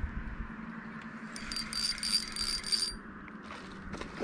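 Fishing reel spool whirring for about a second and a half as line pays out on a cast, a thin high whine, followed by a few light clicks near the end as the bait lands and the reel is engaged. A steady low hum runs underneath.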